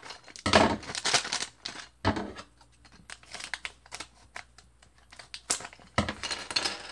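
A shiny plastic LEGO minifigure blind bag crinkling as it is handled and cut open with scissors, with several short sharp snips through the middle and a burst of rustling near the end.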